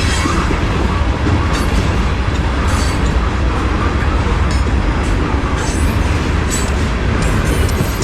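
Freight train cars rolling past close by with a steady heavy rumble, with brief sharp higher-pitched noises from the wheels and cars now and then.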